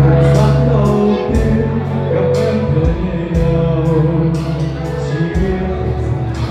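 Vietnamese pop love-song cover playing, with a steady drum beat, sustained bass and singing.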